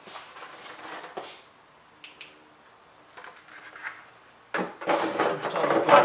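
BMW 328i's plastic engine cover being handled and fitted back over the ignition coils: a few light knocks and rustles, then from about four and a half seconds in a loud run of plastic rubbing and clattering as it is pushed into place.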